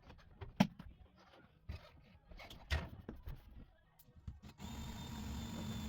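Scattered light knocks and clicks of tools and materials being handled. Near the end a steady hum with a faint high whine starts suddenly.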